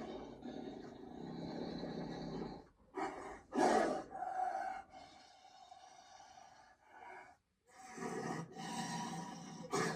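Cartoon sabre-toothed tiger vocal effects: a long low growl, then a short burst and a louder snarl about three and a half seconds in. Quieter breathy growling follows, and after a brief pause another growl runs near the end.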